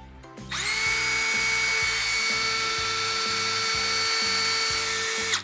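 Bauer 20V Hypermax cordless drill running free with no load: its motor whines up to speed about half a second in, holds a steady pitch for almost five seconds, then stops near the end.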